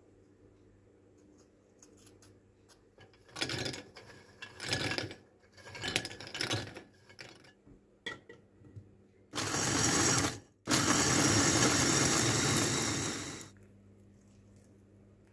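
Electric mini food chopper grinding Oreo biscuits into crumbs: a short burst of about a second, then, after a brief stop, a steadier run of about three seconds. A few shorter, quieter noises come before it.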